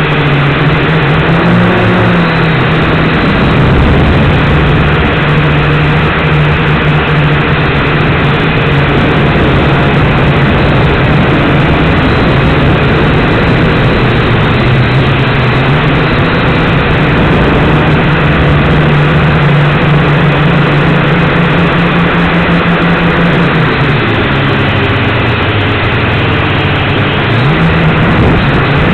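Micro quadcopter's electric motors and propellers buzzing loudly, heard from the craft itself. The pitch shifts with throttle, drops lower for a few seconds near the end, then climbs again.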